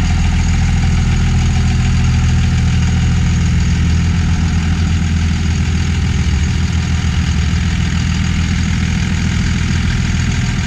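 The 5.9-litre Cummins inline-six turbodiesel of a 1999 Dodge Ram 2500, idling steadily.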